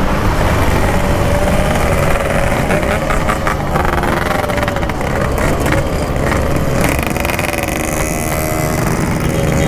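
Yamaha RX-King two-stroke single-cylinder motorcycle running on the road with a steady exhaust note through a standard-style packing-power muffler, its pitch wavering slightly as the throttle changes.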